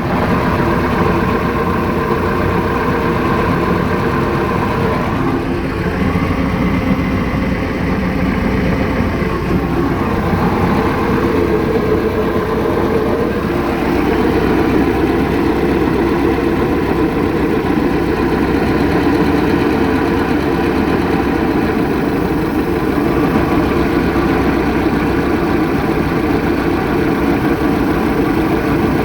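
MerCruiser 3.0 LX four-cylinder marine engine idling steadily with a rough idle.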